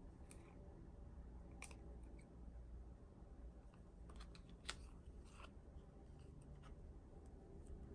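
Faint, scattered clicks and taps of hands handling K-pop album packaging, the loudest tap a little past halfway, over a low steady room hum.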